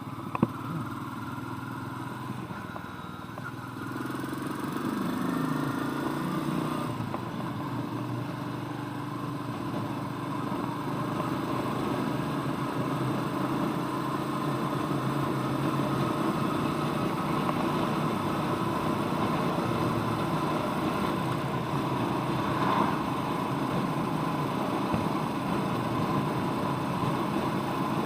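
Royal Enfield Meteor 350's single-cylinder engine running under way on the road: the engine note rises and falls over the first few seconds, then holds steady as the bike cruises. A single sharp click about half a second in.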